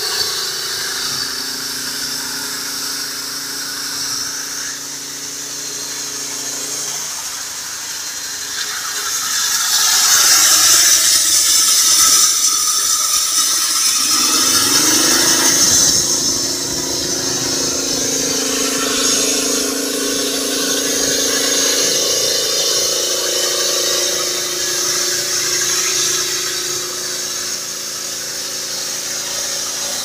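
Small petrol engine running a homemade band sawmill whose band wheels are motorcycle wheels, with a high-pitched squeal from the running blade and drive. The squeal and hiss grow louder in the middle, and the engine's pitch climbs as it speeds up about halfway through, then holds steady.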